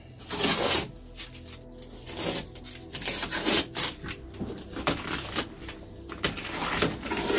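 Masking tape and masking paper being pulled off a freshly painted panel: irregular rustling and tearing strokes, several a second, with crumpling.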